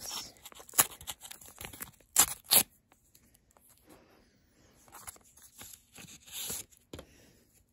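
Lined notebook-paper wrapper of a homemade card pack being torn and crinkled open by hand. Scattered crackles and a few sharp rips are heard, the loudest about two seconds in, with a longer rustle near the end.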